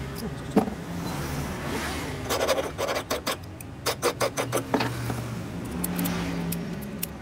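Quick runs of small metallic clicks and rattles as a freshly cut key is handled and pushed into a brass two-track Yale-type lock cylinder to test it, over a steady low hum.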